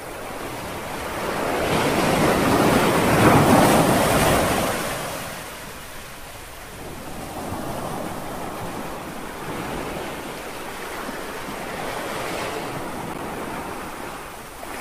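Small waves washing onto a sandy beach. A louder wave swells and breaks a couple of seconds in, then gentler waves wash in every few seconds.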